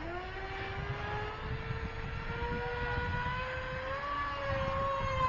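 Feilun FT011 electric RC speedboat running flat out across the water, its brushless motor and propeller giving a high whine that rises in pitch over the first few seconds and then holds.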